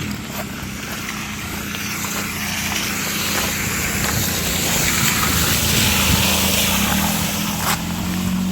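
Strong hurricane wind gusting across the microphone, swelling towards the middle, over a steady low hum.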